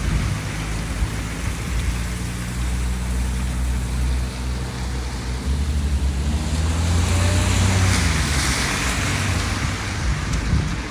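A motor vehicle's engine running steadily, with a rushing hiss of traffic or wind that swells for a few seconds past the middle.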